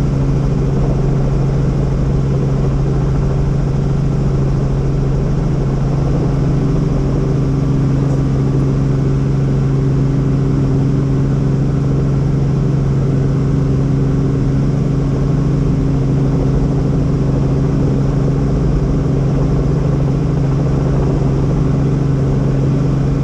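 Helicopter in flight, a loud steady engine and rotor drone with a constant low hum that does not change.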